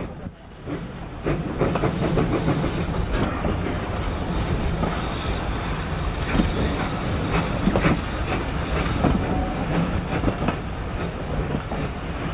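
A steam-hauled passenger train passing close by: a GWR 2800-class 2-8-0 locomotive and its coaches. The wheels clatter over the rail joints above a steady low rumble, which swells about a second in.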